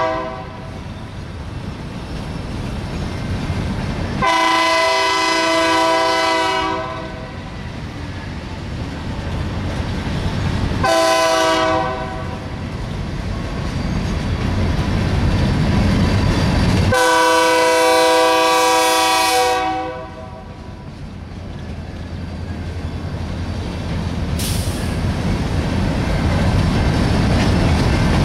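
Empty coal cars rolling past with a steady wheel rumble and clatter, while a diesel locomotive horn sounds over it: a long blast about four seconds in, a short one about eleven seconds in, and another long one about seventeen seconds in.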